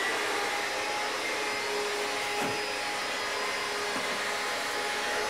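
Vacuum cleaner running at full speed: a steady rushing of air with a high motor whine over it.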